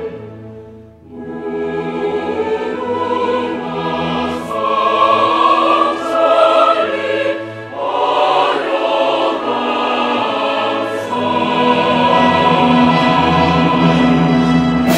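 Choral music, a choir holding long sung chords. The music dips almost to nothing about a second in, then swells back.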